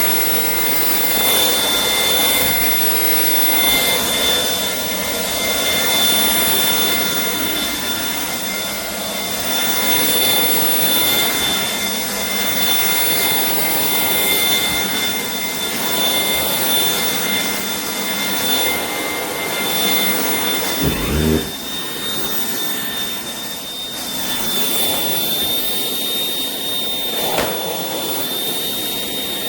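Shark PowerDetect cordless stick vacuum running: a steady high motor whine over the rush of airflow. About two-thirds of the way in there is a brief low thump, and near the end the whine steps up slightly in pitch a couple of times.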